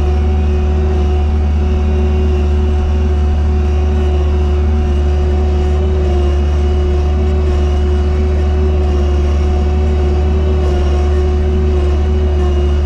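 Engine of a sidewalk snow-clearing machine running steadily, heard from inside its cab: a constant low drone with a steady tone above it.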